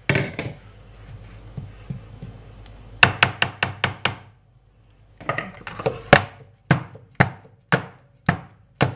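A metal baking tin full of cake batter rapped down on the countertop again and again to level the batter: a quick run of knocks, then steady single knocks about twice a second.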